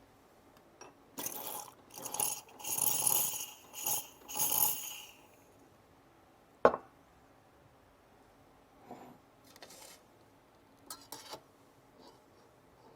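Clinks and rattles of cups and metal coffee-making parts being handled, in several short bursts over the first five seconds. Then comes a single sharp knock, followed by a few fainter clinks.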